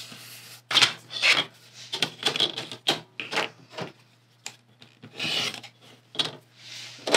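Foundation paper and fabric being folded back and creased with rustling, scraping strokes. An acrylic ruler is set down, and a rotary cutter rasps along it, trimming the seam allowance of a paper-pieced quilt block, in a longer stroke about five seconds in.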